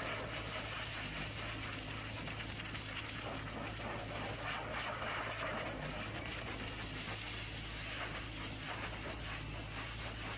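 Pressure-washer jet hissing steadily as it sprays a truck's metal fuel tank and chassis, with a steady low hum underneath.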